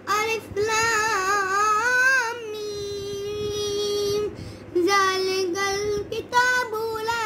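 A boy reciting the Quran aloud in Arabic in a melodic chant, drawing out long held notes, with a short pause about four seconds in.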